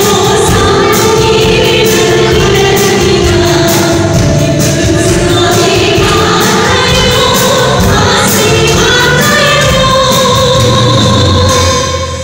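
Live band with two women singing together into microphones over electric guitar, drum kit and keyboard, with a steady drum beat. The music drops away briefly right at the end.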